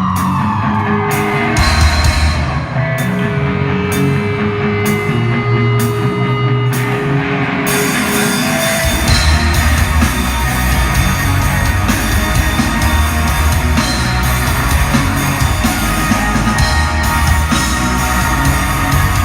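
Live rock band playing loud through concert speakers, with drums and bass guitar; the full band comes in more densely about nine seconds in.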